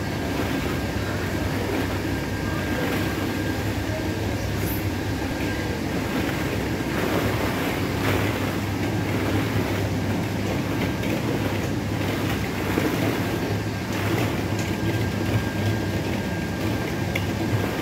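Steady rattling clatter of many plastic play balls running through a ball-pit playground's pipe system, over a constant machine hum. The level stays even, with a few louder clicks here and there.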